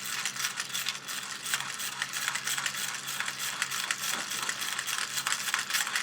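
Plastic hand-pumped spinning-disc toy clattering with fast, continuous ratchet-like clicks and rattles as its wheel is pressed over and over to spin the disc.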